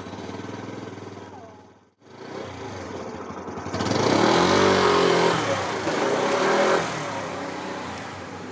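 Vehicle engine running after being started, then revving up and easing back down for a few seconds as it pulls away.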